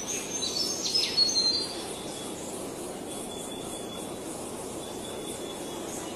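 Songbirds chirping in a quick burst of high, falling notes during the first two seconds, then only faint thin calls, over a steady hum of outdoor background noise.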